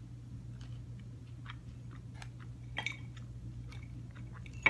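Close-up chewing of a Tofurky broccoli and cheddar pocket, with many small wet mouth clicks, a louder crunch about three seconds in, and a sharp click right at the end.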